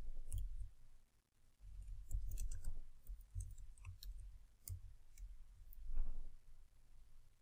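Computer keyboard keystrokes clicking in short, scattered runs as a line of code is typed, with dull low thuds among them. The loudest comes about six seconds in.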